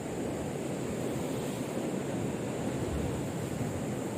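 Ocean surf washing in a steady, continuous rush.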